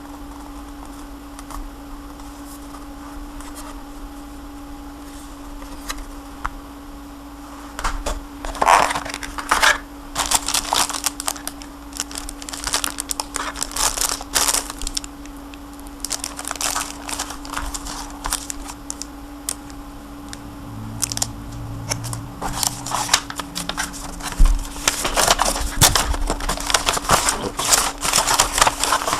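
Packaging of an Icy Box IB-234U3 SSD rack being handled and unwrapped: irregular rustling and scraping noises that begin about a quarter of the way in, ease off briefly past the middle and pick up again toward the end, over a steady low hum.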